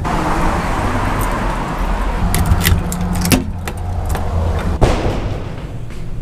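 A car going past, then a ring of keys jangling and clicking in a brass deadbolt as a door is unlocked, with one sharp click near the end.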